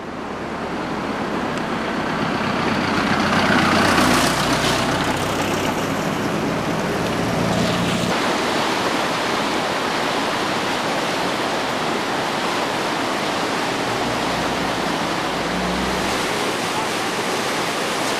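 Swollen river in flood, fast muddy water rushing in a steady, even noise that fades in over the first few seconds, with some low rumble at times.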